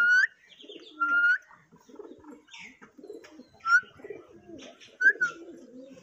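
Alexandrine parakeet giving four short, loud whistled calls, each ending in a quick upward flick, with softer low chatter between them.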